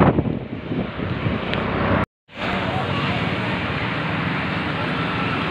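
Wind rushing over the microphone while riding a two-wheeler along a road, dying down during the first two seconds as it slows. After a brief dead gap, steady street traffic noise with engines running.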